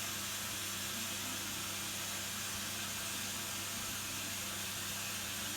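Steady hiss with a low, even hum and no distinct events.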